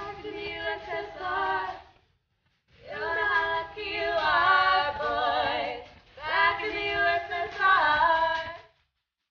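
Music: a woman singing a song in three long phrases with wavering, vibrato pitch and short breaks between them. It stops shortly before the end.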